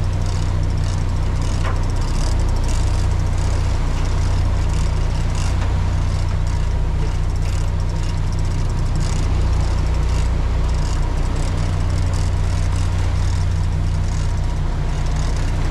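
Fishing boat's engine running with a steady low drone, under a hiss of wind and water.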